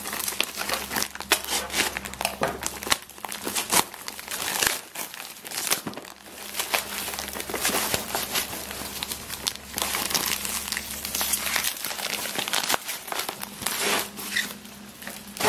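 Plastic packing tape wrapping being torn and peeled off a cardboard box by hand, crinkling and crackling without a break.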